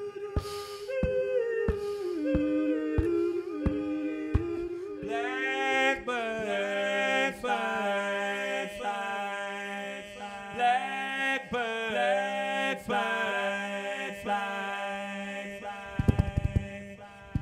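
Live-looped a cappella male voice: a held sung note over an evenly spaced looped vocal beat. About five seconds in, many harmonised voice layers stack in with stepping pitches, and a low sustained note joins. A cluster of low percussive thumps comes near the end.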